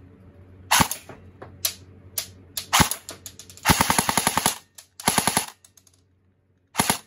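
An M4-style AEG airsoft rifle fires 0.23 g plastic BBs at a glass jar. A few scattered single shots come first, then three rapid full-auto bursts; the longest, about a second, is near the middle.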